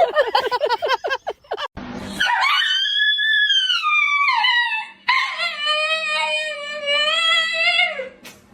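A dog howling: two long howls, the first rising and then falling, the second held fairly level, after a quick run of short yips at the start.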